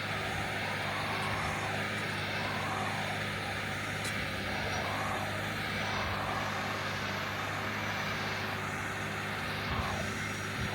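John Deere 9360R tractor's diesel engine running steadily under load, pulling an 8-bottom moldboard plow.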